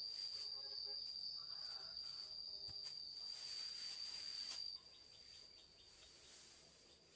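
An insect's continuous high-pitched trill that cuts off suddenly about five seconds in, over faint outdoor background.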